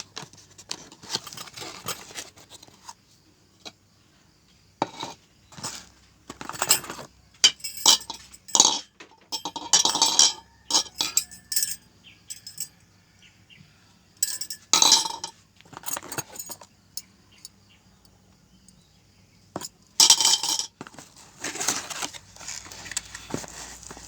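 Irregular clinks, clatters and rustles of hard objects and packaging being handled, coming in short bursts with quiet gaps between, loudest around the middle and again near the end.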